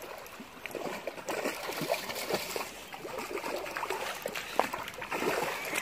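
A dog wading through a shallow stream, its legs splashing the water in short, irregular strokes over the steady trickle of the current.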